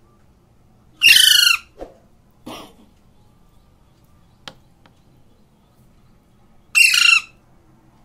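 Alexandrine parakeet giving two loud harsh squawks, about a second in and again near the end, with a couple of fainter short calls and a soft click between them. A hungry parrot calling while it is hand-fed.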